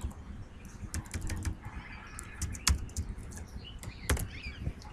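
Computer keyboard being typed on: scattered, irregular key clicks, with two louder presses a little past the middle and about four seconds in.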